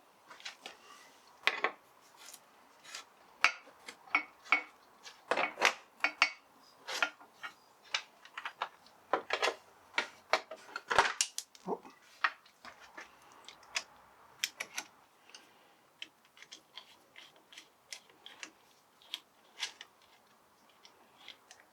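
Hand tools and small metal parts clinking, clicking and tapping in an irregular run of sharp strokes.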